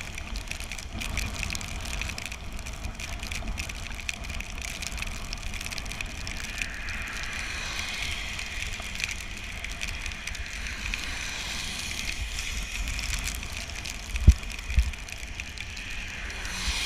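Bicycle being ridden on a wet road in the rain: steady hiss of tyre spray and rain with wind rumbling on the microphone. Two dull thumps come near the end.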